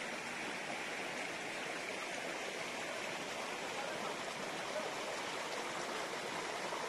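Shallow rocky stream running: a steady sound of flowing water over stones.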